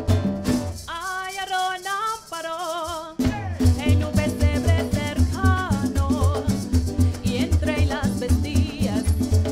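Live parang band: women singing with guitars, cuatro and maracas. About a second in, the bass and percussion drop out, leaving the voices alone on long notes with vibrato. Around three seconds in, the full band with shakers and bass comes back in under the singing.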